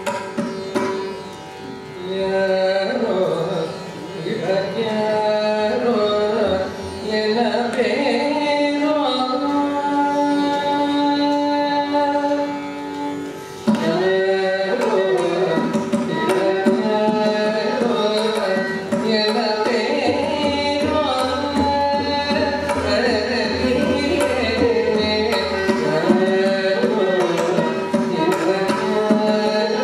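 Carnatic classical music in raga Bhairavi: a woman's voice sings ornamented, gliding phrases, shadowed by a violin, over a tanpura drone and a mridangam. About 14 seconds in the drumming comes in strongly and the music gets louder and fuller.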